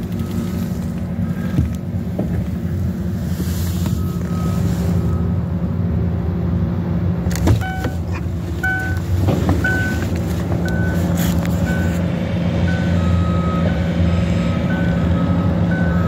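Steady low engine rumble of idling vehicles and construction machinery, with a construction truck's reversing alarm beeping about once a second from about halfway through. A couple of brief knocks are heard.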